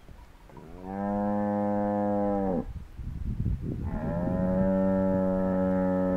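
Cattle mooing: two long, drawn-out moos about a second apart, each held at a steady pitch and dropping off at the end.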